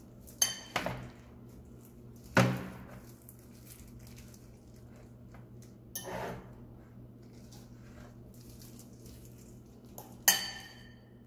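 Metal fork clinking and knocking against a metal baking tray while cheese mixture is spread onto bread slices: a few separate sharp clinks spread over several seconds, the loudest near the end ringing briefly.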